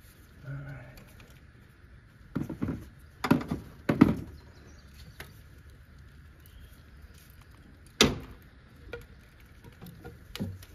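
Several sharp knocks and clunks of tools and parts being handled while working on a radiator hose clamp. A cluster of them comes about two to four seconds in, and another single knock comes about eight seconds in.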